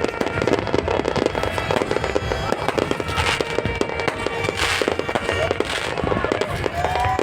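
Fireworks going off: a rapid, dense string of bangs and crackles, with three louder hissing bursts in the second half.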